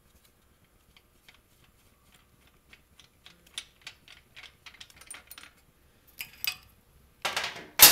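Small clicks and ticks, coming faster and faster, as the transmission oil filler/dipstick cap of a 2008 Harley-Davidson Road Glide is turned out by hand, then a loud scuffing noise near the end.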